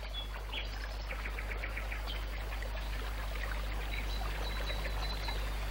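Outdoor nature ambience: a steady soft hiss with faint bird chirps scattered through it, including a quick run of chirps in the first couple of seconds.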